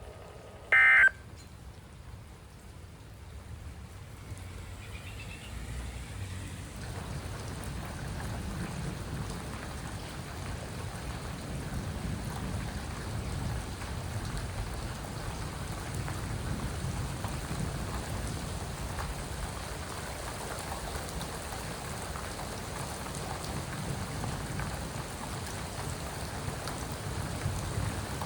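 Steady rain from a severe thunderstorm, building over the first several seconds and then holding, with a low rumble underneath. A short, loud electronic tone sounds about a second in.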